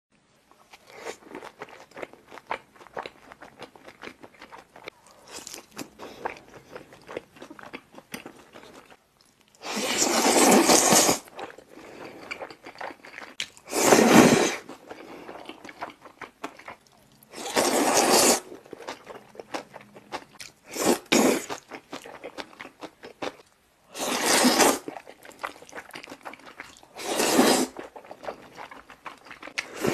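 Close-miked eating of black bean sauce noodles: wet chewing and smacking with small mouth clicks, broken by six loud slurps, each about a second long, as mouthfuls of noodles are sucked in.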